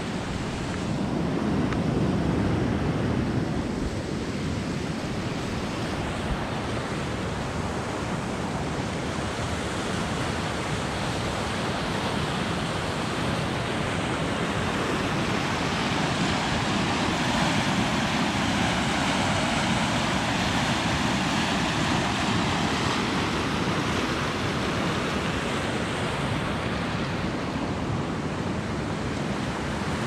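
Steady rush of water pouring through a small rapids-style waterfall over rock ledges, an even unbroken roar.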